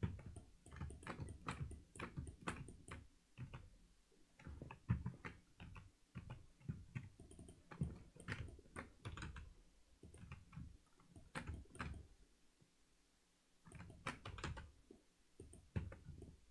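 Computer keyboard keys and mouse buttons clicking irregularly, with a brief pause a little past the middle.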